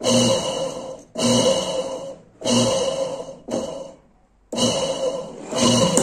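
A washing machine's capacitor motor is switched on in short bursts, about once a second, turning the belt and pulley. Each burst starts with a hum and a whirring hiss that die away as the motor coasts. The live wire is touched to the windings by hand to imitate the wash agitation, where the control board's triacs switch the motor from one direction to the other.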